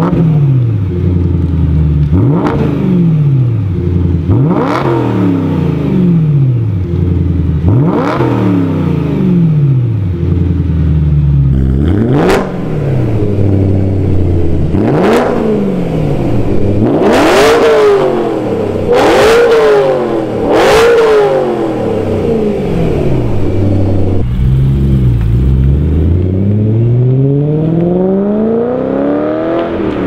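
BMW E92 M3's S65 V8 revved in quick blips through a Meisterschaft GT exhaust, each rev rising sharply and dropping back; the earlier blips are with the catalytic converters in place, the later ones with Turner test pipes (cat delete) and a sharp crackle on top. Near the end the engine pulls in one long, steady rise of revs under light acceleration.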